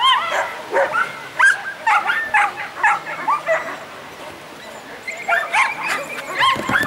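A dog barking in a rapid run of short, high yips, pausing briefly a few seconds in, then barking again.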